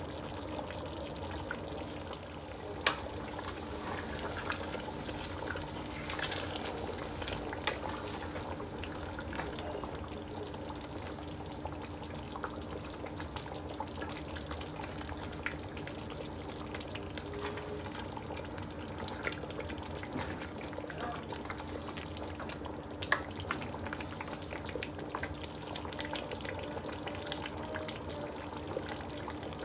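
Nigerian tomato stew frying in a pot, with scattered sharp clicks of a spoon against the pot and a steady low hum underneath.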